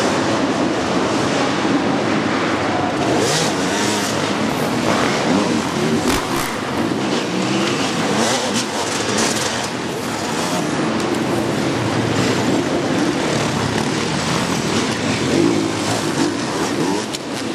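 A pack of enduro dirt bikes revving and accelerating together off the start and around the dirt track, many engines overlapping in a large hall.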